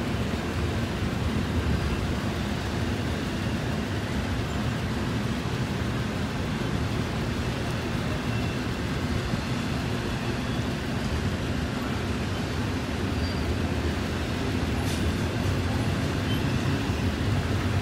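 Double-stack intermodal well cars rolling past: a steady low rumble of steel wheels on the rails.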